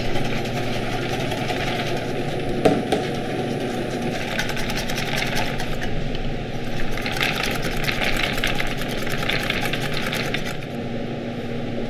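Wire balloon whisk beating cream in a stainless steel bowl set over ice: a fast, continuous scraping and tapping of the wires against the metal, with one sharper clank a little under three seconds in.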